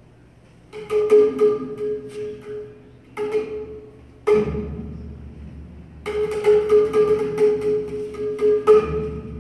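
Live improvised percussion music on a pitched struck instrument: short phrases of quick strikes that ring on one note, starting about a second in and coming five times, with a low thump opening two of the phrases.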